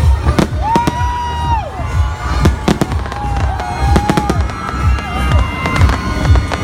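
Aerial fireworks bursting in a rapid, irregular run of bangs and deep booms.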